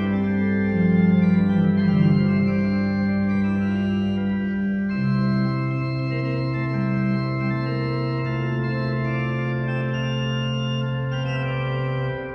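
Organ playing slow, sustained chords over a held bass note. The bass moves up to a new note about five seconds in, and the sound dies away near the end.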